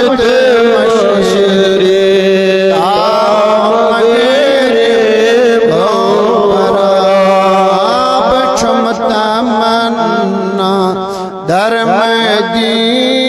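A man's voice chanting a devotional verse in long, wavering held notes with melodic glides, amplified through a public-address system, with a brief break about eleven seconds in.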